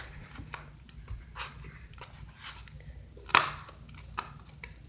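Irregular light scraping and tapping of a utensil in a bowl as slime ingredients are mixed and the baking soda is crushed, with one sharper clack about three and a half seconds in.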